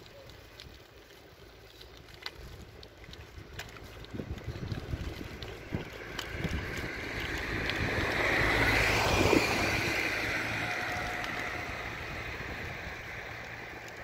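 A vehicle passing by: a rushing noise with a low rumble that swells to a peak about nine seconds in and then slowly fades.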